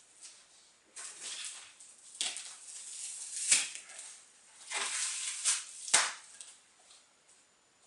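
Rustling and handling of packaging while unboxing a speaker: a string of scratchy rustles, with two sharp clicks about three and a half and six seconds in.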